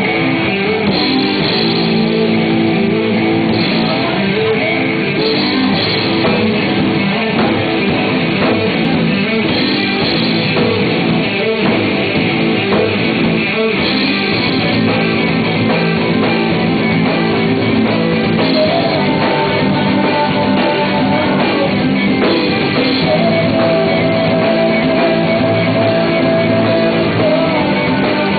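Live rock music from a band: guitar and drum kit with singing, played loud and steady, with long held notes in the second half.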